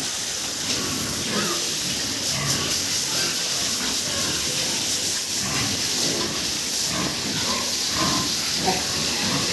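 Pigs grunting and squealing in short, scattered calls over a steady hiss.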